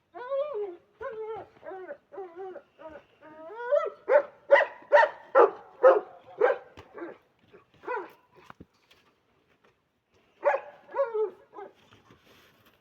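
A dog whining in short cries that slide up and down, then barking in a run of about eight barks, roughly two a second, followed after a pause by two or three more near the end.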